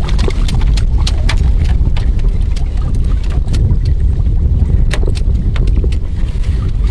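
Water sloshing around a floating metal fishing platform as it is moved across the lake, with a steady low rumble and many small scattered clicks and splashes.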